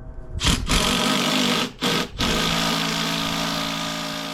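An electric power tool's motor running with a steady hum, stopping twice briefly in quick succession about two seconds in, then running on.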